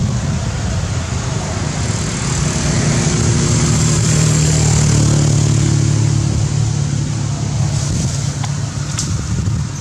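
A motor vehicle's engine running nearby, a steady low hum that grows louder toward the middle and then eases off, as of a vehicle passing.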